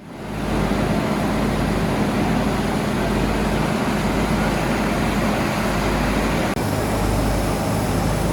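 Nilgiri Mountain Railway steam locomotive standing ready at the station: a loud, steady rushing noise over a low hum, fading in at the start.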